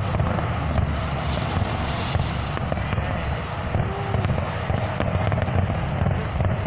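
Aerial fireworks barrage heard from a distance: many shells bursting in quick succession, their booms and crackle running together into a continuous rumble.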